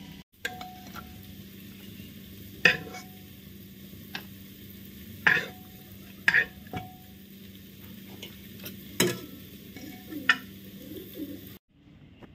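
About ten sharp clinks and taps of a utensil, spaced irregularly, some ringing briefly, over a steady low hum.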